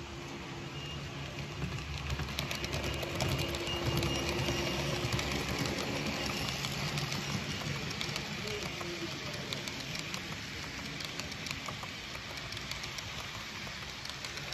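Model passenger train rolling past on its track: a steady running hum with rapid light clicking of the metal wheels over the rails, swelling about two seconds in and then easing off a little as the cars go by.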